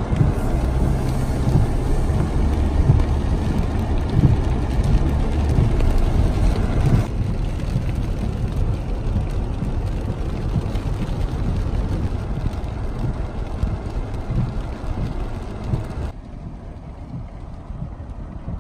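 Car driving on a wet, slushy road, heard from inside the cabin: a steady tyre hiss on the wet pavement under a low engine hum. About two-thirds of the way through the noise drops sharply to a quieter steady hiss.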